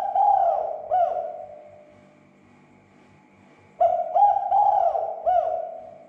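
Spotted dove cooing: two phrases of several short, arched coos, about four seconds apart.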